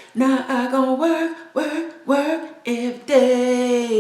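A voice singing a short tune in a few held notes at steady pitches, stopping near the end.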